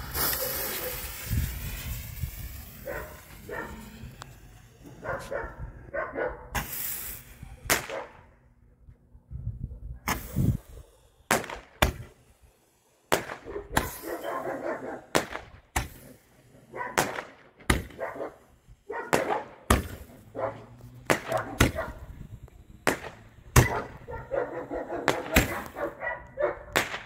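A Cobra roman candle firing a rapid string of sharp shots and bangs, starting about ten seconds in. A dog barks repeatedly between the shots.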